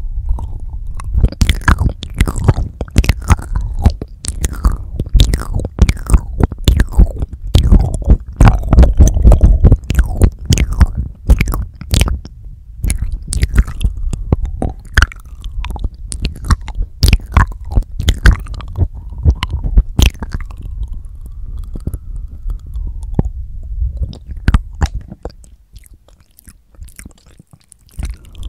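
Wet mouth sounds made with the lips right on a Tascam DR-40X recorder's microphones: a dense run of sharp lip smacks, tongue clicks and licking over a low rumble. The clicks thin out after about 20 seconds and stop for a couple of seconds near the end.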